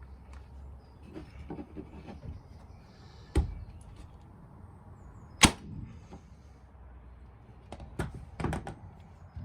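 Titan TTB517STP electric nail gun, set to full power, firing staples into softwood: two sharp shots about two seconds apart, the second louder. Lighter clicks and knocks follow near the end.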